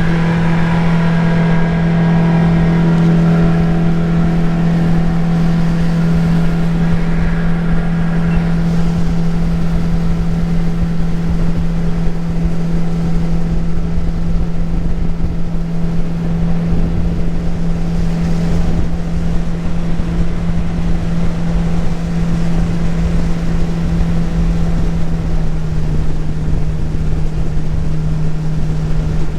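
Jet-drive outboard motor on a tunnel-hull jet boat running at a steady cruising speed upstream, with water and wind rushing past. The engine note drops slightly near the end.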